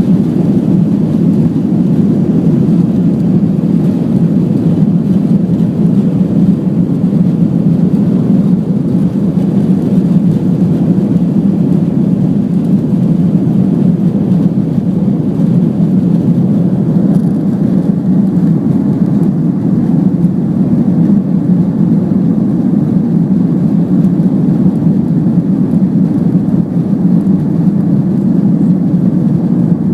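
Cabin noise of an Airbus A330-300 airliner heard from a passenger seat: a steady, loud low rumble of the engines and rushing air that holds even throughout.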